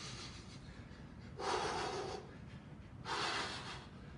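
A man breathing hard from intense shadowboxing, with long, forceful breaths repeating about every second and a half. Two loud ones fall in the middle of the stretch, after a weaker one at the start.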